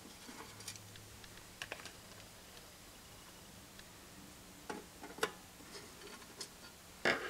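Faint, scattered small clicks and taps of hands and a small screwdriver handling the metal parts of an electronic scale, with a louder short noise near the end.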